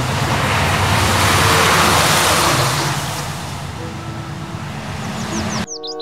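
Heavy articulated trucks, a silo tanker among them, driving past on a road. Their engine and tyre noise swells to a peak about two seconds in, then fades as they move away, and cuts off just before the end.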